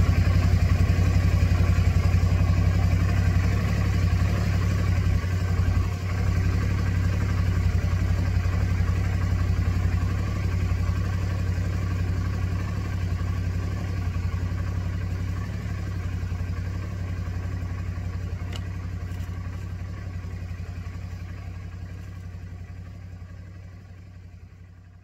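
2007 Suzuki V-Strom's V-twin engine idling steadily, fading out over the last few seconds.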